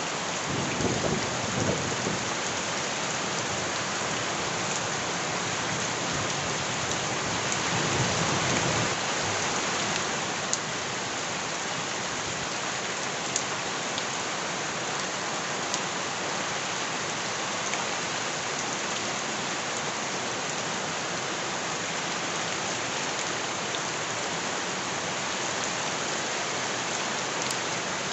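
Steady heavy rain falling on surfaces. Low rumbles swell about a second in and again around eight seconds in, heard as thunder. A few sharp ticks sit above the hiss.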